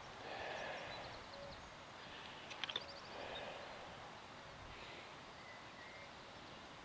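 Faint wind noise swelling and easing, with a few distant bird chirps and a couple of small sharp clicks about two and a half seconds in.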